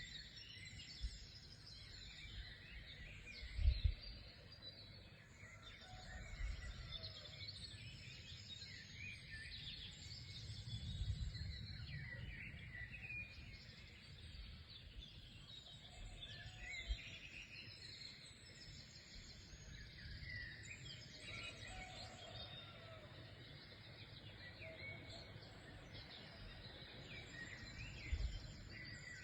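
A chorus of several birds singing and chirping, many short calls and trills overlapping. Now and then a brief low rumble, the loudest about three and a half seconds in and again near the end.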